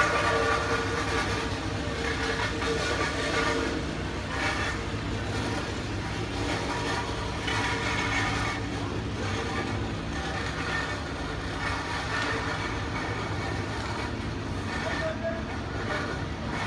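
Steady engine drone, a constant machine hum with a few held tones, with faint distant voices now and then.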